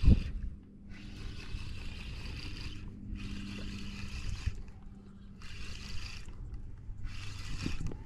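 Shimano Sustain 3000 spinning reel being cranked in four separate stretches of a second or two each, a whirring retrieve that stops and starts. A low rumble runs underneath.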